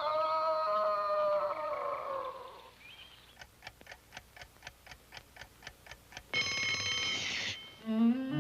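Cartoon sound effects: a clock ticking at about four ticks a second, then an alarm clock bell ringing for about a second before it cuts off. At the start a held, falling pitched sound fades out before the ticking begins.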